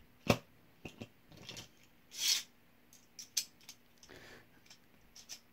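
Plastic spinning-top and launcher parts being handled: a few sharp clicks, the loudest about a quarter second in, lighter ticks, and a short scrape about two seconds in.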